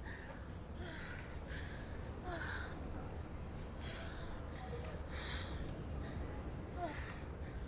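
Crickets trilling, a steady high-pitched tone, over a steady low hum of night ambience, with faint scattered distant sounds.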